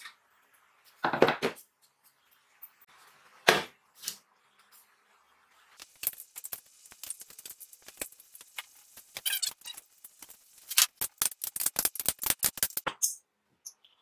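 Metal-on-metal knocks and clicks from hand tools and parts on a welded steel tube frame: two sharper knocks in the first few seconds, then a long run of quick light clicks.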